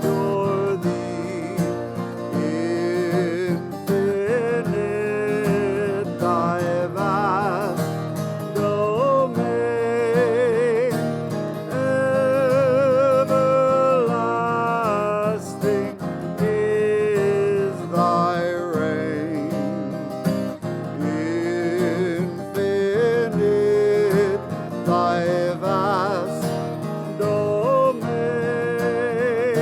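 Slow devotional hymn music with acoustic guitar accompaniment and a held melody sung with vibrato.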